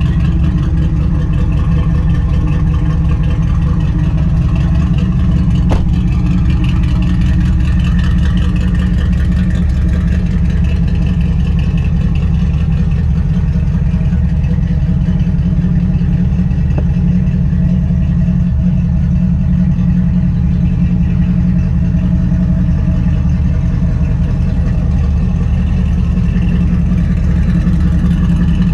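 Dodge Dakota R/T's 410 stroker V8 idling steadily, warming up after a cold start, with a deep, even exhaust note.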